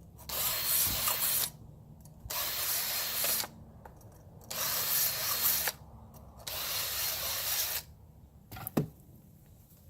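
Chainsaw chain cutters being sharpened: four even rasping strokes of about a second each, then a sharp click near the end.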